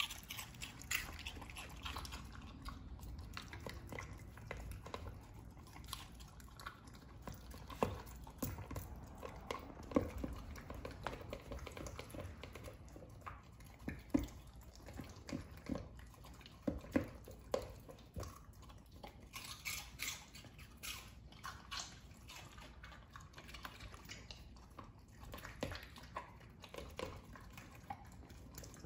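Welsh corgi eating chunks of vegetables from a plastic slow-feeder bowl: irregular crunching and chewing, with frequent short clicks.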